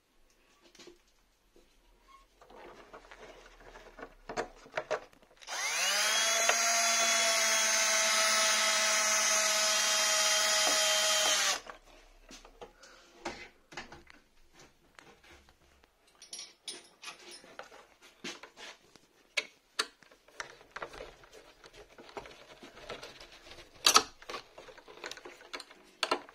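Electric drill spinning up with a quick rising whine, then running at a steady pitch for about six seconds before it cuts off. Light clicks and taps from handling parts come before and after it, with a sharper knock near the end.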